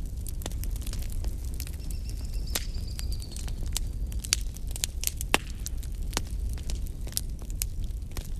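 Wood fire crackling: irregular sharp pops and snaps over a low steady rumble, with one louder snap a little past the middle. A faint high whistle sounds briefly about two seconds in.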